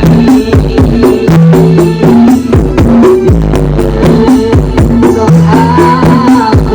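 Very loud dance music with heavy, booming bass and a steady fast drum beat, blasting from a giant parade sound system (sound horeg).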